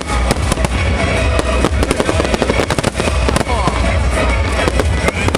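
Aerial fireworks display going off nonstop: rapid overlapping cracks and bangs of bursting shells over a heavy low rumble, with music playing.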